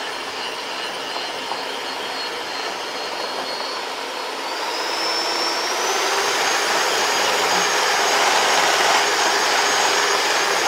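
Cuisinart electric hand mixer running steadily, its beaters working through a thick mix of softened cream cheese and protein powder in a glass bowl. Its whine rises in pitch about halfway through and it gets a little louder.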